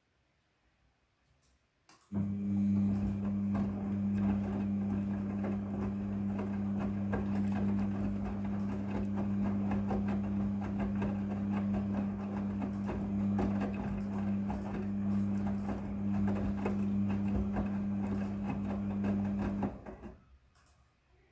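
Midea front-loading washing machine in its wash cycle: the drum starts turning about two seconds in with a steady low motor hum and a busy rustle and clatter of tumbling wet laundry, then stops shortly before the end.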